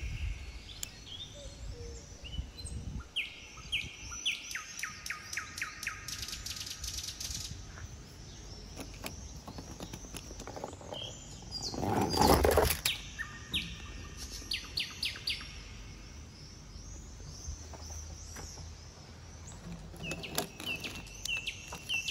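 Garden birds chirping and trilling throughout. About halfway through comes a brief, louder scraping rush.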